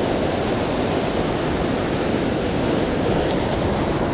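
Rough surf breaking and washing in over sand and rocks: a steady, even rush of water.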